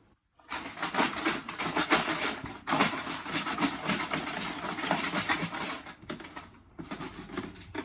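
A container of numbered draw tickets being shaken, a fast, continuous rattling shuffle. It breaks off about six seconds in and starts again briefly near the end.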